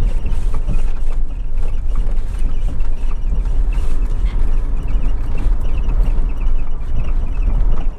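A vehicle driving slowly, with a steady heavy low rumble, while birds chirp repeatedly in the background.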